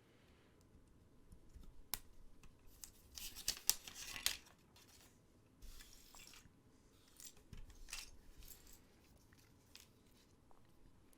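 LEGO bricks being handled and pressed together: faint, scattered sharp plastic clicks and brief rustles, busiest about three to four and a half seconds in.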